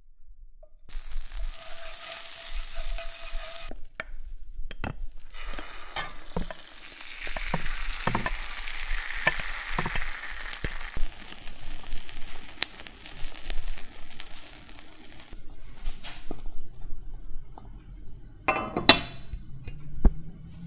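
Butter sizzling in a hot frying pan, then whipped egg going in and being spread with a spatula, with sizzling and many small scraping clicks. Near the end a heavy enamelled cast-iron lid clanks once onto the pan.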